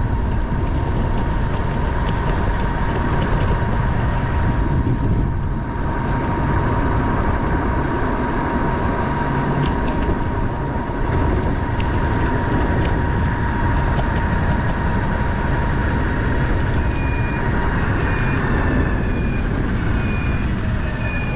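Wind buffeting and road rumble from a trike rolling along a paved street, with a thin steady whine that fades out about three-quarters through. Near the end a repeating short high beep starts, like a vehicle's reversing alarm.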